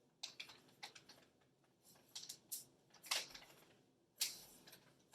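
A Siberian husky puppy chewing a dog treat: irregular sharp crunches and clicks, two louder ones about three and four seconds in.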